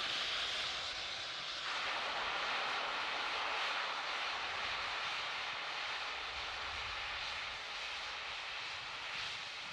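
Steady rushing hiss of a Falcon 9 rocket venting vapour on the launch pad during the final countdown. A faint steady tone under the hiss stops about two seconds in.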